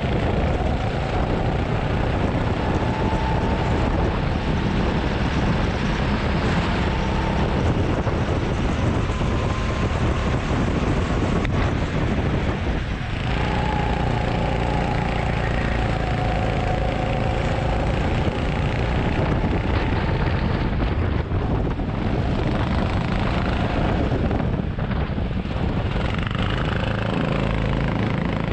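Go-kart engine running at racing speed, heard onboard, its pitch rising and falling through the corners. Wind buffets the microphone throughout.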